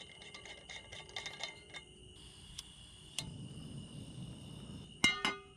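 Crickets trilling in a steady high drone, with a run of light clicks in the first two seconds. About three seconds in, a low rushing sound begins, and near the end comes a short, loud clatter of knocks, the loudest sound here.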